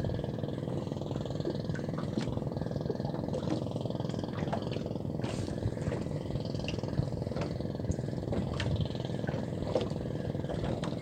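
A motor's steady low drone, a hum of several tones over a rumble, broken now and then by short clicks and knocks.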